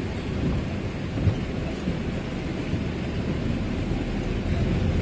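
Steady low rumble and hiss of a camper van driving slowly on a wet road in rain, heard from inside the cab: tyres on wet tarmac and rain on the windscreen, with the wiper sweeping.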